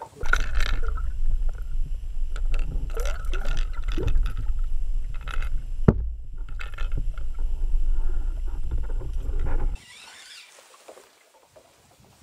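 Water rushing over a submerged action camera's housing, heard as a loud, muffled low rumble with scattered clicks and a sharp knock about six seconds in. It cuts off abruptly near ten seconds.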